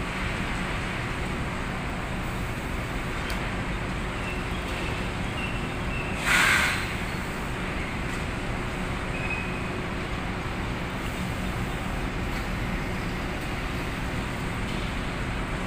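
Steady machinery noise with a low hum from a running belt conveyor carrying cement bags down to the pallet. About six seconds in there is one loud, rushing burst lasting about half a second.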